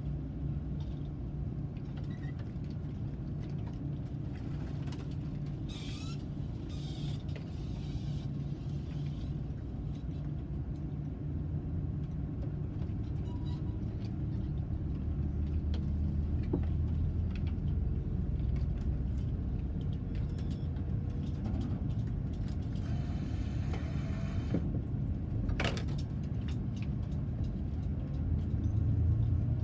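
A car driving along, with steady engine and road rumble. The engine note shifts and the sound grows a little louder partway through.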